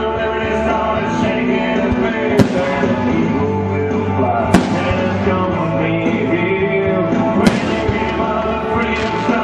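Aerial firework shells bursting with sharp bangs, three times, about two and a half, four and a half and seven and a half seconds in, over continuous loud music with singing.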